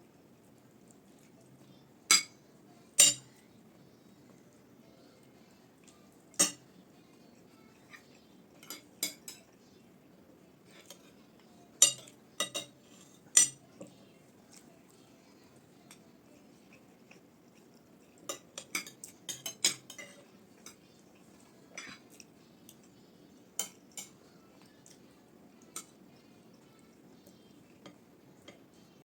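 Spoons and plates clinking at a meal: scattered sharp clinks and taps, some in quick clusters, over faint room hum.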